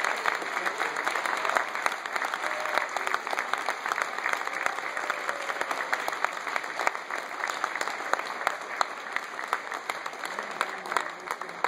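Audience applauding steadily, a dense patter of many hands clapping that eases slightly near the end.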